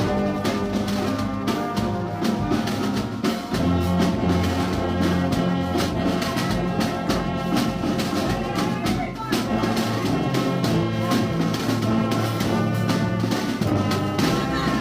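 Brass band playing a melodic tune, trumpets and trombones over low brass, with regular percussive beats.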